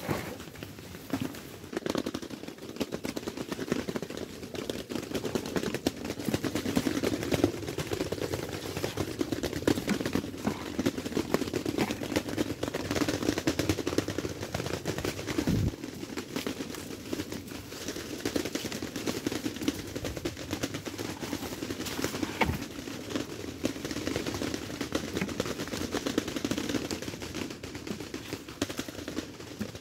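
Continuous close crackling rustle of cucumber leaves and vines being pushed aside and handled while cucumbers are picked, with a few sharper knocks.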